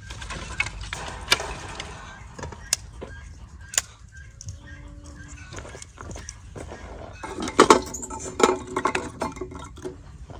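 Clinking and knocking of dishes and cooking utensils: a few sharp single clinks in the first four seconds, then a busier clatter from about seven and a half to nine and a half seconds in.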